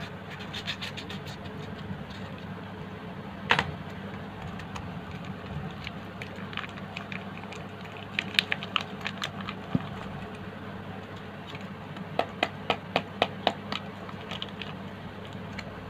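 Foil sachet crinkling and crackling as it is handled, torn open and emptied over a plastic bowl. There is one sharp crack about three and a half seconds in, and a quick, evenly spaced run of about six clicks near the end.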